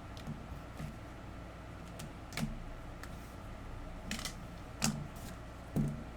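Computer keyboard being typed on in a few irregular, sparse keystrokes, with a faint steady hum behind.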